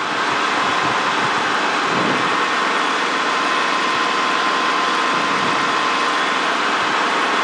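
Helicopter cabin noise in flight, heard through the headset intercom feed: a steady hiss with a thin, steady whine running through it.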